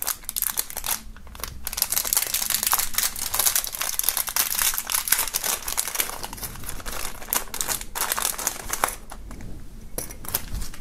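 Clear plastic wrapping crinkling and rustling as a small keychain is worked out of its sealed bag by hand, with a couple of brief pauses.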